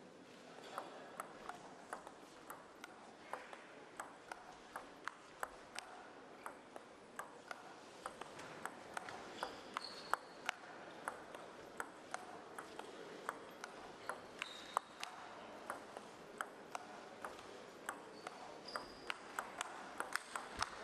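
Long table tennis rally: the plastic ball clicking off the bats and the table about twice a second, a chopping defender playing from far back against an attacker at the table. A few short high squeaks come in around the middle and near the end.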